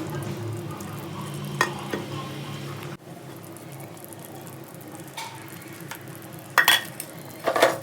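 Food sizzling in a cooking pot as it is stirred, with a few sharp knocks of the spoon against the pot, the loudest near the end.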